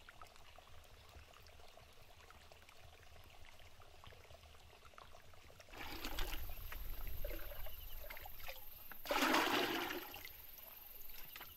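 Faint trickle of a shallow stream, growing louder about six seconds in, then a loud pour of water from a small container into a plastic bucket near the end.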